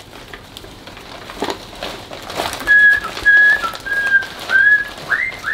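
Wrapping paper rustling and tearing, then a run of about six short, loud, high-pitched whistle-like squeals in a row, the last one rising and then falling in pitch.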